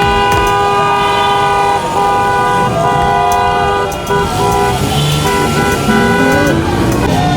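Many vehicle horns honking at once, long overlapping blasts on different pitches starting and stopping over a steady noisy background.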